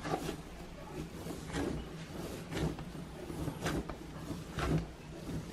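Whole-wheat bread dough being kneaded by hand on a wooden table: a soft push-and-rub stroke of the dough against the board, repeating about once a second.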